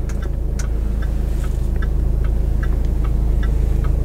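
Hazard warning lights' flasher ticking in a steady, regular tick-tock inside the cabin of a Jaguar F-Pace, over the low, steady idle of its 2.0-litre four-cylinder diesel engine.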